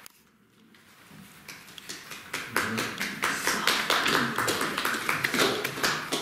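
Audience applause: a few scattered claps that swell into steady, dense clapping about two seconds in.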